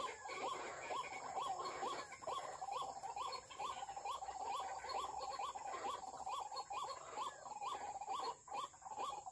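White-breasted waterhen calls: a rapid, unbroken string of short rising notes, about two a second.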